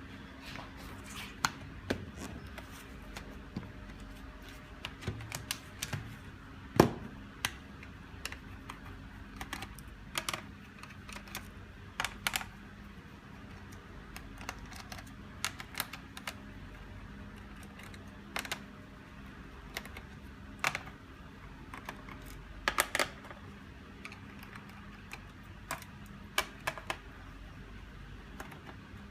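Hands and tools working on a laptop's plastic case: scattered, irregular clicks and taps, the loudest about seven seconds in, over a faint steady hum.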